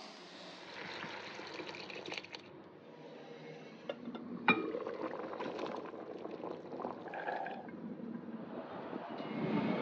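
Water running and splashing as it fills a container, with one sharp knock about halfway through.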